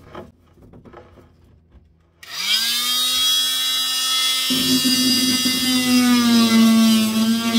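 Corded oscillating multi-tool starting up about two seconds in with a rising whine, then running steadily while cutting a slot in timber panelling. About halfway through its sound turns suddenly heavier and rougher as it works into the wood.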